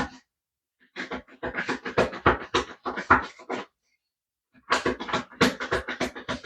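A deck of tarot cards being shuffled by hand in quick, even strokes, about three to four a second, pausing briefly twice.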